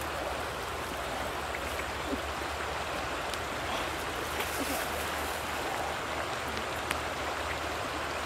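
River water flowing steadily with an even rushing hiss, broken by a few faint ticks and scuffs.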